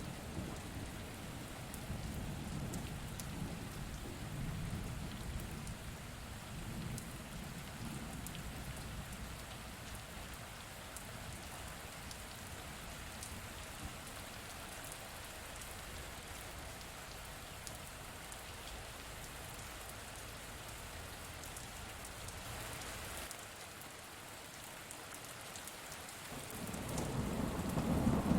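Steady rain falling with scattered drips, under a low rumble of distant thunder that fades out over the first several seconds. Near the end a new roll of thunder starts to rumble up and grows louder.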